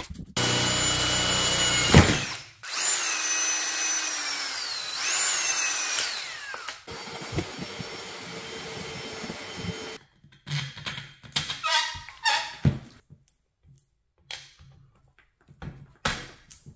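Parkside cordless pole saw's electric motor running with a high whine, then a sharp knock about two seconds in. The whine then falls in pitch twice as the saw works, and scattered clicks and rustles follow near the end.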